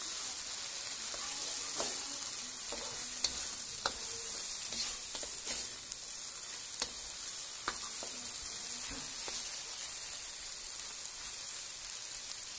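Sliced okra and egg sizzling in a wok, with a spatula scraping and clacking against the pan every second or so as it is stirred.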